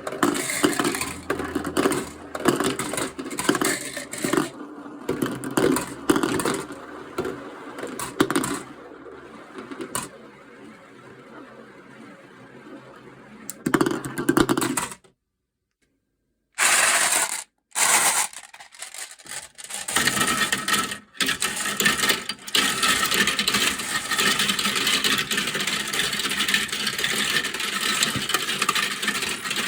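Marbles rolling and clacking down plastic marble-run slopes, with quick clicks as they hit track pieces and each other. The sound cuts out for a moment about halfway through, then comes back as a dense, continuous clatter of many marbles at once.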